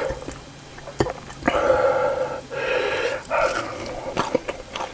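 Close-miked mouth sounds of a person eating: wet clicks and chewing, then a few loud breaths through the mouth about halfway through.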